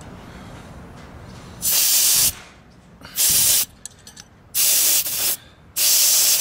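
Compressed air hissing from a truck tire's valve stem in four short bursts as the pressure is checked.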